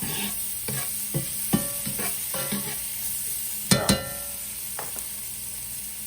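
A utensil stirring food in a hot sauté pan, clinking and scraping against the pan with short ringing clanks, the loudest a double clank about four seconds in, over a steady sizzle of lobster, tomatoes and garlic frying in olive oil.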